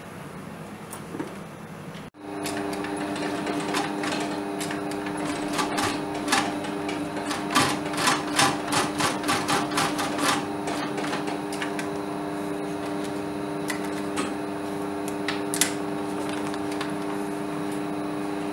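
Industrial leather sewing machine running while stitching a leather strap: a steady motor hum starts about two seconds in, and in the middle the needle knocks through the leather in a run of strokes about three a second.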